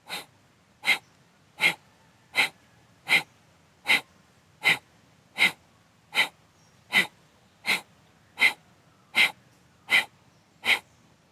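Kapalabhati pranayama breathing: sharp, forceful exhalations through the nose, each pushed out by a snap of the belly. They come in a steady rhythm, about one every three-quarters of a second, fifteen in all.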